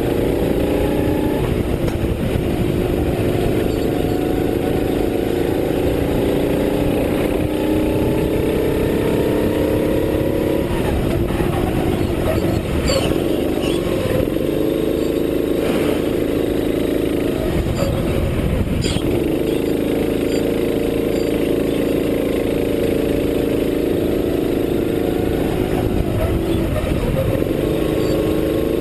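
Racing kart engine at full race pace, heard onboard: its pitch climbs along the straights and falls off when the driver lifts for corners, about ten seconds in and again around eighteen seconds, then climbs again. Wind noise on the microphone runs underneath.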